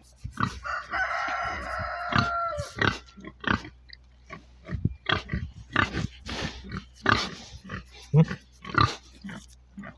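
A pig squealing for about two seconds near the start, followed by a run of short grunts.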